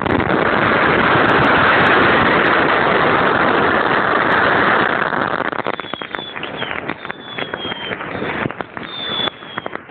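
A firework going off close to the microphone: a loud, steady rushing hiss for about five and a half seconds, then a run of crackles and pops with a few short, high, slightly falling whistles.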